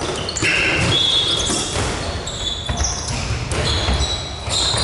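Dodgeballs bouncing and smacking on a gym court, mixed with short high squeaks of sneakers on the floor, several impacts in quick succession.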